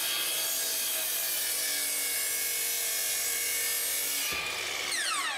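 Miter saw running at full speed as its blade cuts through the end of a wooden board, a thin trim cut to remove planer snipe. A knock about four seconds in, then the saw is switched off near the end and its whine falls as the blade spins down.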